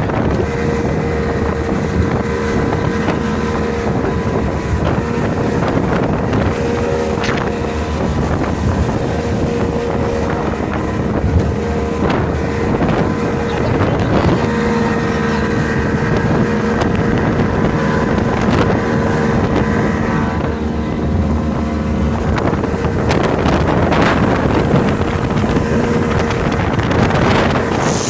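Motorboat engine running steadily under way, a constant hum, with wind buffeting the microphone.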